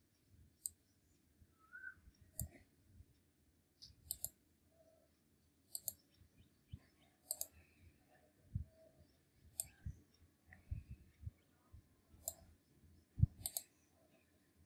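Computer mouse clicking: scattered single clicks and several quick double clicks, with a few soft low thuds from the desk.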